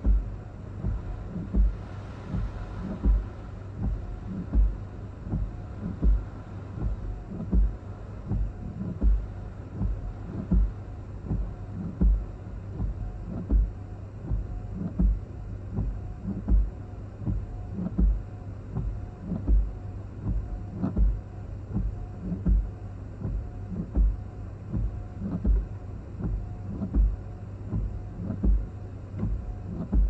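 Car windshield wipers sweeping at a steady pace, with a dull thump about every second and a half, over the car's steady low hum.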